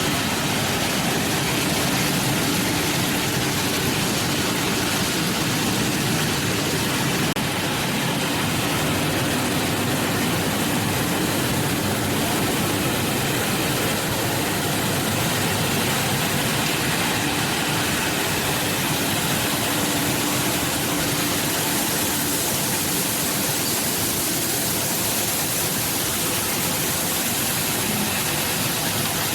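Bubble washing machine running steadily while washing tomatoes: a continuous rush of churning, bubbling water over the even hum of its blower and motor.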